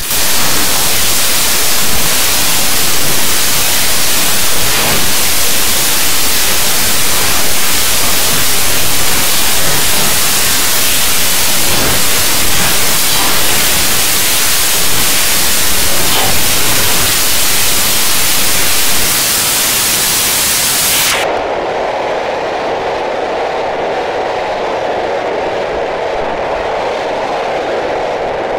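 Loud, steady static hiss of digital white noise from a heavily effected logo soundtrack. About 21 seconds in it switches abruptly to a duller, narrower hiss.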